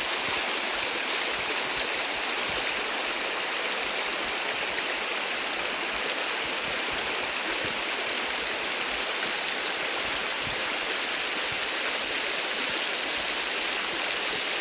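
A creek running, a steady rush of water that cuts off suddenly at the end.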